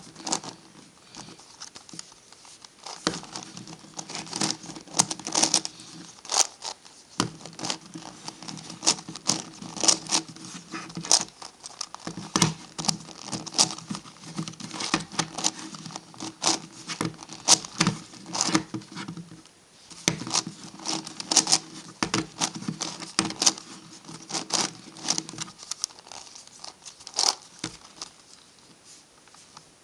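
MF8 Gigaminx puzzle being turned by hand: quick, irregular clicking and clacking of its plastic layers as they are twisted, with brief pauses between runs of turns.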